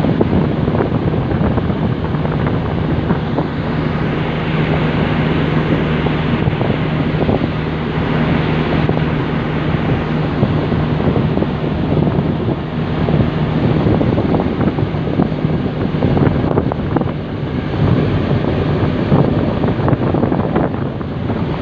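Engine of a rail work vehicle running steadily with a low hum as it travels along the track, with wind buffeting the microphone.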